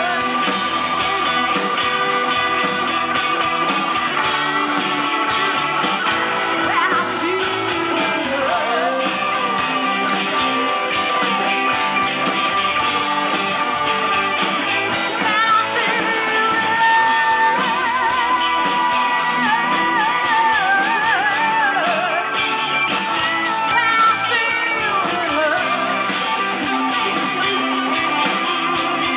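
Live rock band playing: electric guitars, bass guitar and drums, with a lead line that bends and wavers in pitch over a steady backing.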